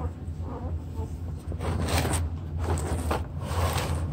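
Rustling and scraping from handling, three times from about halfway through, over a steady low hum.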